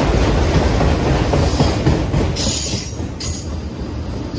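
Freight train of autorack cars passing close by: steady noise of wheels on rail and rolling cars, with a brief higher hiss about two and a half seconds in.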